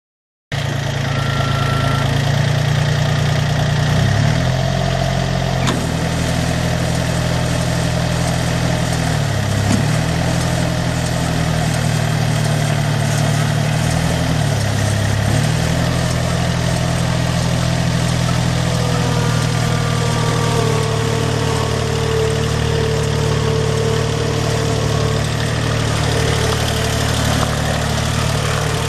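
Kubota three-cylinder diesel engine of a Toro Groundsmaster 325-D mower running steadily at idle. Its speed dips briefly and recovers three times, and a faint whine joins it for a few seconds past the middle.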